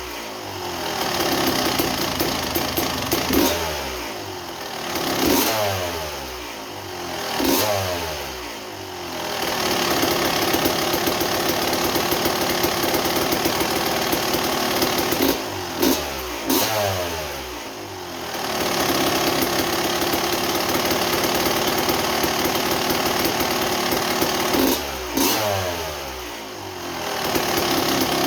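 1987 Kawasaki KX250 single-cylinder two-stroke engine idling and being blipped with the throttle several times; each time the revs jump and fall back to a steady idle. It is running much better now that the reed block has been turned the right way up, curing a very rich mixture.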